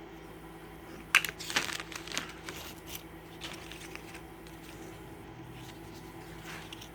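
Cardboard game tiles being handled: a few light clicks and rustles about a second in, then fainter rustling over a faint steady hum.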